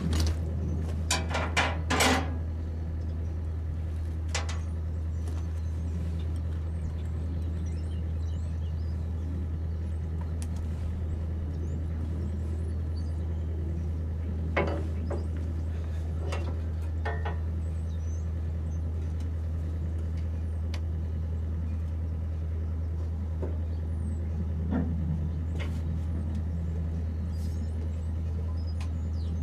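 The Cummins six-cylinder turbodiesel of an M936A2 army wrecker idling steadily with a low hum. A few light knocks and clacks come on top of it, mostly in the first few seconds and around the middle.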